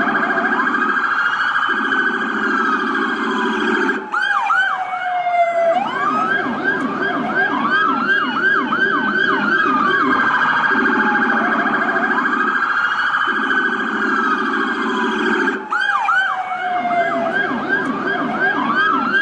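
Police car sirens, several layered together. They alternate between a slow wail that glides up and down and a fast yelp of quick rising sweeps, over a lower pulsing tone that comes in stretches. The sequence repeats about every eleven to twelve seconds.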